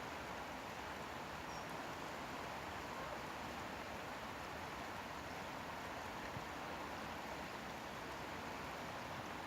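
River water flowing: a steady, unbroken rush of moving water.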